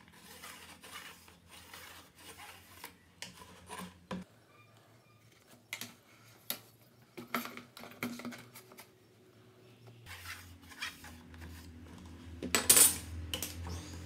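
A steel ruler and metal try square clinking and sliding against a plastic PVC pipe, with the light scratch of a pencil marking lines, as scattered clicks and scrapes. A louder clatter of metal comes near the end.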